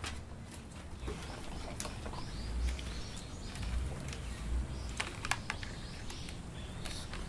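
Dry, wiry orchid roots and leaves rustling and crackling with small sharp snaps as a clump is pulled apart by hand, while birds chirp in the background.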